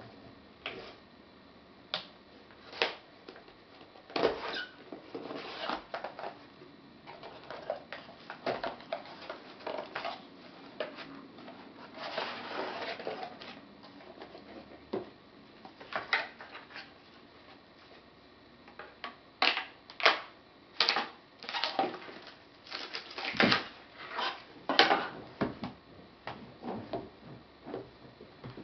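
A cardboard shipping box being opened by hand: a folding knife slitting the packing tape, cardboard flaps scraping and knocking, and a smaller box being lifted out and set down on a table. Many short sharp knocks and scrapes, busiest and loudest in the second half.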